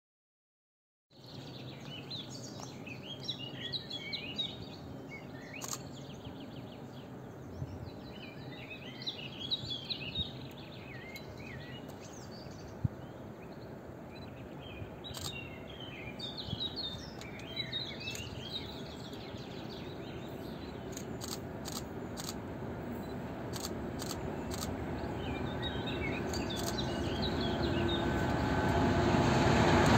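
Small birds singing in short repeated phrases over a steady outdoor background, starting after about a second of silence. In the last ten seconds the low rumble of an approaching diesel freight train grows steadily louder.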